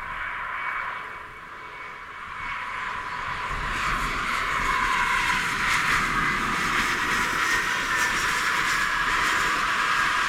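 Jet engines of a SkyWest Mitsubishi CRJ-701ER on landing approach, growing louder over the first few seconds and then staying loud, with a high whine that slowly falls in pitch as the jet passes.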